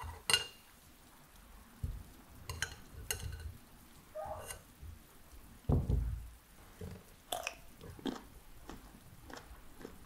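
Metal fork clinking and scraping against a glass jar as a pickled cucumber is fished out of the brine, with a dull thud about six seconds in, then a few crisp bites of the pickle and chewing.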